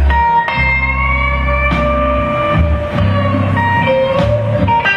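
Live country music: an electric guitar lead played on the standard six-string neck of a double-neck guit-steel, with held notes that bend slightly in pitch over a low bass line.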